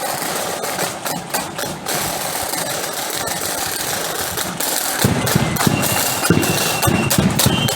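A steady, dense rattling noise, then about five seconds in a marching flute band strikes up: heavy bass drum beats with a high flute melody over them.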